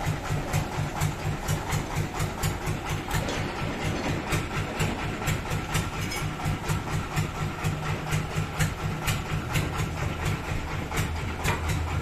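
A heavy engine idling steadily, with a regular ticking knock running through its drone.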